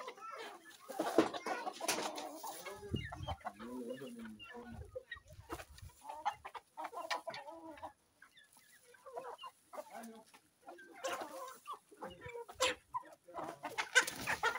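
Chickens clucking, many short calls overlapping, busiest in the first three seconds and again from about eleven seconds in, with a quieter spell in between.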